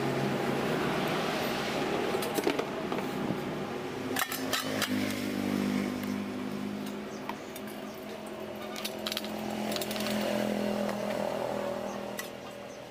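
Clunks and rattles of a chainsaw body being handled and tipped to empty stale petrol from its open fuel tank, over the steady hum of an engine running in the background.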